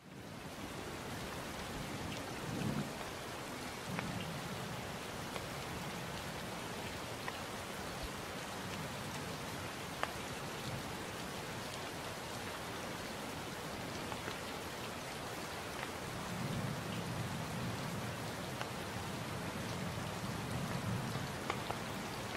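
Steady rain falling, an even hiss with scattered drop ticks. Low thunder rumbles roll under it a few seconds in and again through the last third.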